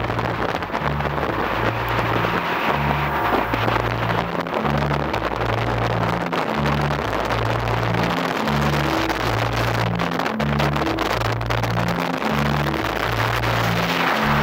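Background music with a repeating bass line over the steady noise of a motorboat running.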